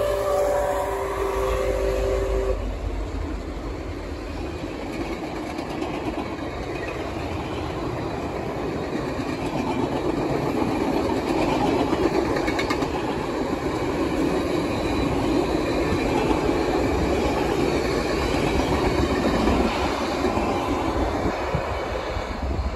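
Canadian Pacific 2816 steam locomotive's whistle holds a chord that ends about two seconds in. Then the train rolls through the grade crossing with a steady rumble of wheels on rail, loudest midway and easing near the end.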